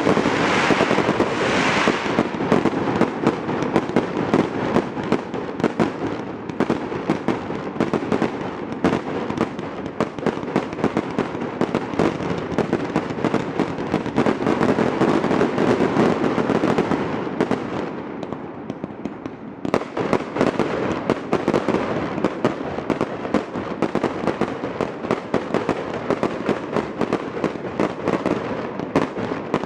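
Fireworks display: a dense, continuous barrage of bangs and crackling, thinning to a brief lull about two-thirds of the way through before picking up again.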